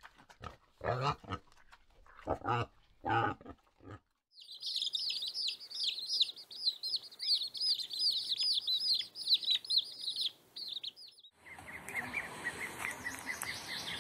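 Wild boar piglets grunting in short bursts for the first few seconds. Then a chick peeping steadily in fast, high chirps for about seven seconds. Near the end, ducklings peeping over a steady hiss.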